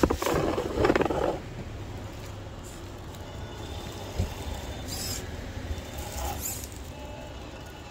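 Power Hobby 10.2-chassis electric RC rock crawler creeping over rock: a low steady hum and faint whine from its motor and drivetrain, with a click about four seconds in. A loud rustling noise fills the first second and a half.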